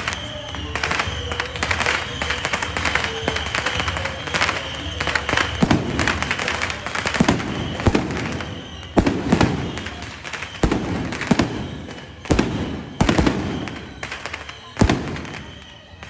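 Firecrackers going off: a dense, rapid crackle that thins about halfway through into separate louder bangs, roughly one a second.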